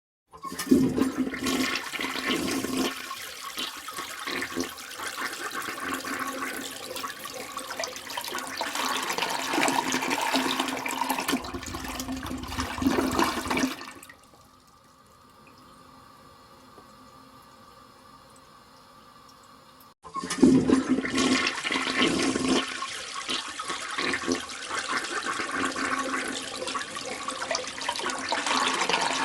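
A toilet flushing: a rush of water lasting about thirteen seconds that dies away, then after a short quiet spell a second flush starts about twenty seconds in.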